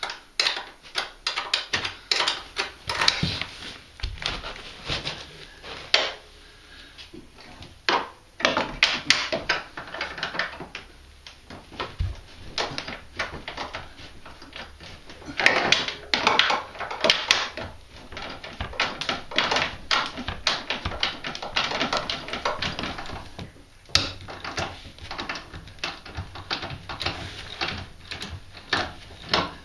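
Ratchet wrench clicking in quick runs of strokes, with short pauses and the odd clank of tools on metal, as bolts are worked loose on a snowmobile's front suspension to relieve the torsion bar and free the lower A-arm.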